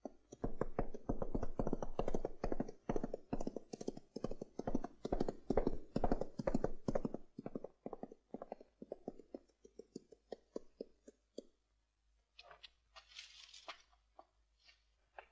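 Horse hooves clopping on a dirt path in a quick, even rhythm. They grow fainter and more widely spaced after about seven seconds and stop. A brief rustling noise follows near the end.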